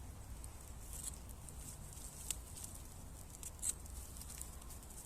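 Small campfire of twigs just lit with wax-soaked paper kindling, crackling with scattered sharp ticks and two louder pops, about two and a half and three and a half seconds in.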